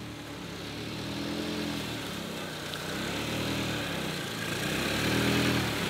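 Car engine running at low speed, its pitch drifting gently up and down as the car approaches, growing slowly louder.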